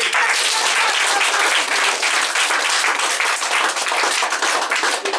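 Small audience applauding steadily, many quick hand claps blending together.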